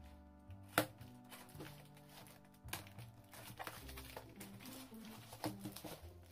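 Background music with slow held notes, under sharp clicks and scrapes from a utility knife cutting the packing tape and cardboard of a taped box and from the box being handled; the loudest click comes about a second in.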